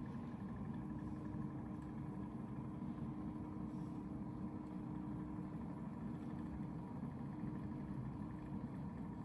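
Steady low mechanical hum, unchanging throughout, with a faint constant tone above it.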